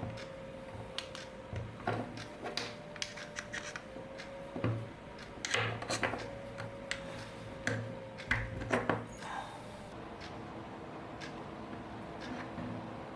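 Irregular clicks, taps and rubbing of small plastic parts being handled and fitted together, over a faint steady hum; the clicking thins out after about nine seconds.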